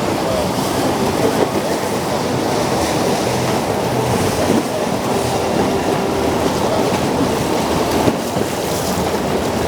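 Steady rush of water and wind from a boat under way on the river, an even noise with no breaks.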